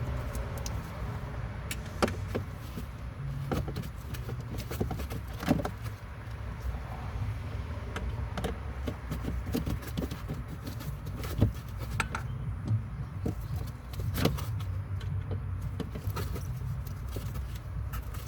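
Scattered clicks, taps and rattles of hand tools and plastic interior trim being worked, over a steady low rumble; the sharpest knocks come about two, five and a half, eleven and fourteen seconds in.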